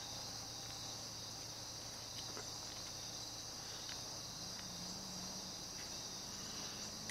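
Steady high-pitched drone of an insect chorus, with a few faint clicks.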